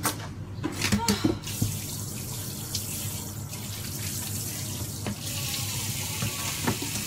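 Kitchen tap running into a sink, starting about a second and a half in and running harder from about five seconds in. A few knocks from the knife and cutting board come just before it.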